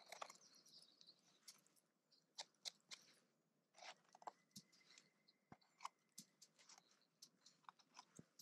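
Faint, irregular crackles and scrapes of a porcini (king bolete) being trimmed and cleaned in the hand, with bits of its flesh dropping onto pine needles.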